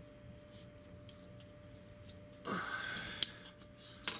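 Faint clicks and scuffs of a plastic Transformers figure being handled as its hinged foot pieces are folded down, with a short scuffing rustle about two and a half seconds in and one sharp click just after.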